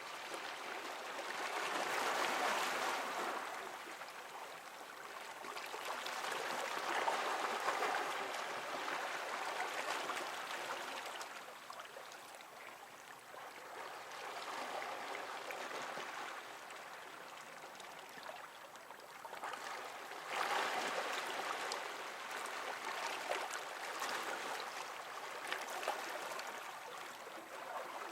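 Small waves washing and splashing against rocks: a continuous rush of water that swells and eases in surges every few seconds.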